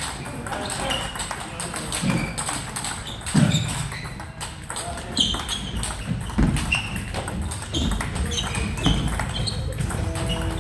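Table tennis rally: the ball ticks off the bats and the table in quick succession, with blocks played off a Dr. Neubauer ABS 2 EVO frictionless anti-spin rubber. Rallies at the neighbouring tables add overlapping clicks in a reverberant hall.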